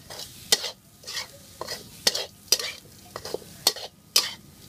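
Metal spatula scraping and turning minced meat and curry paste around a hot metal wok while stir-frying, in quick strokes about two a second.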